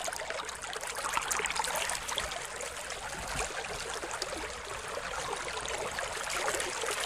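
Aquarium water trickling and bubbling steadily, with a fine crackle of small splashes.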